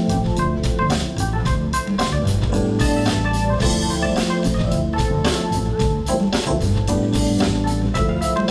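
Live band playing an instrumental passage led by a Hammond-style organ, with sustained chords over a steady drum beat.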